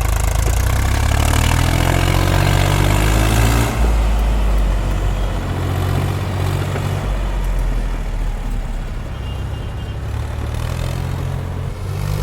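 Heavy diesel engine running loud and working. It revs up over the first few seconds, drops back suddenly about four seconds in, then runs on more steadily.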